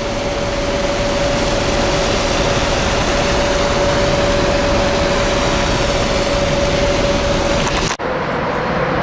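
A vehicle running steadily, with a constant whine over its road or rail noise. The sound breaks off abruptly for an instant about eight seconds in and picks up again with the whine a little lower.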